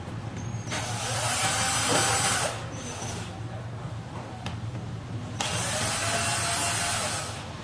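Power screwdriver running twice, about two seconds each time, backing out two bolts. Each run is a steady motor whine, rising and falling slightly in pitch.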